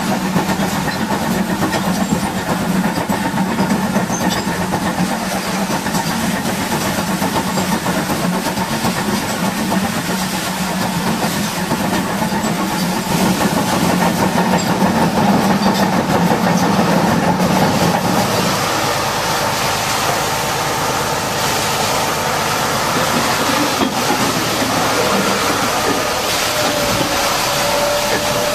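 An engine running steadily under a dense hiss of spraying water, as heavy equipment is pressure-washed. About 18 seconds in, the low engine hum drops away, and the hiss carries on with a faint higher whine.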